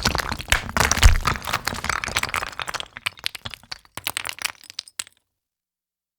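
Landslide sound effect: rocks and debris cracking and clattering, with a heavy low thud about a second in. It then thins to scattered small impacts and stops about five seconds in.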